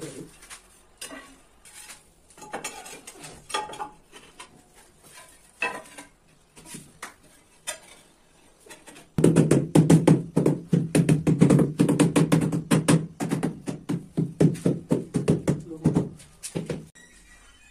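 Rubber mallet tapping floor tiles down into a wet mortar bed to seat and level them: a loud run of rapid dull knocks from about nine seconds in until near the end, after scattered lighter knocks and scrapes as tiles are laid and pressed by hand.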